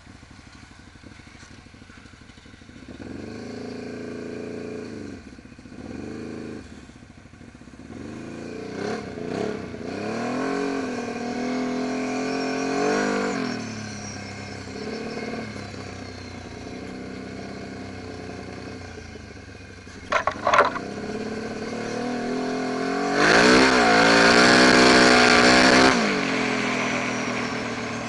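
ATV engine running under throttle, its pitch rising and falling again and again as it is revved up and eased off. About two-thirds of the way through there are a couple of sharp knocks, and near the end a loud rushing noise lasts about three seconds.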